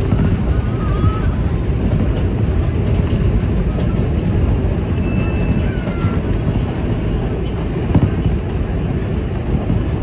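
Train running on the rails, a steady loud rumble.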